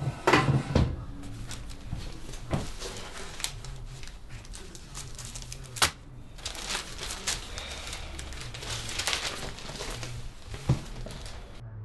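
Paper rustling as envelopes and a newspaper are handled and sorted on a table, with a few sharp knocks.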